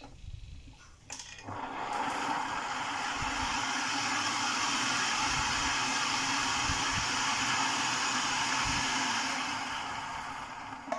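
Electric food processor motor running steadily, spinning its blade to whisk eggs with vinegar, lemon juice and seasonings, the first step of homemade mayonnaise. It starts after a click about a second and a half in and runs down near the end.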